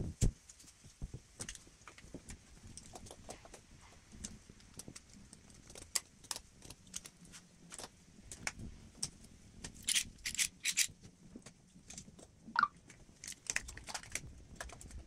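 Hand tools and metal parts clinking and clicking in scattered strokes, with a quick run of sharp clicks about ten seconds in and a short squeak near the end.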